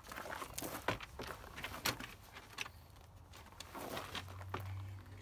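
Plastic knocking and rustling from a Ford Crown Victoria's door trim panel and its wiring connectors being handled, with two sharp clicks about a second apart near the start.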